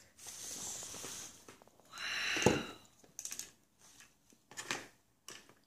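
Light clicks and knocks of a toy fire truck being handled and rolled on a plastic high-chair tray, with a brief louder rasp about two seconds in.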